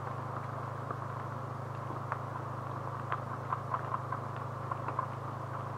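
A steady low hum under scattered light ticks and taps from a tape measure and pencil marking joist layout on lumber.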